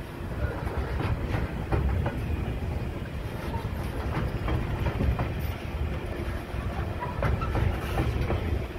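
Freight train of hooded hopper wagons passing close by: a steady low rumble from the wheels with irregular clicks and clacks as they run over the rail joints.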